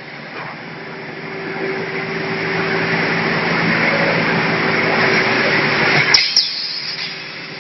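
Automatic vacuum forming machine for PS foam ceiling tiles running: a rushing hiss builds over several seconds and cuts off with a click about six seconds in, over a steady machine hum.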